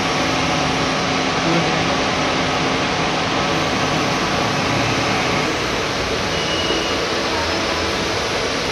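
Horizontal milling machine running steadily as its disc cutter cuts the teeth of a metal bevel gear under flood coolant: a continuous, even mix of machine running noise and cutting.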